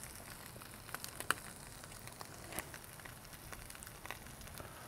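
Faint crackling hiss from the hot charcoal grill, with a few light clicks and taps, the sharpest just over a second in, as pickle slices are laid on the burgers.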